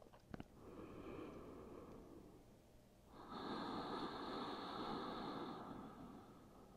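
A woman breathing slowly and deeply, faint and airy: a softer breath of about two seconds, then a louder one of about three seconds.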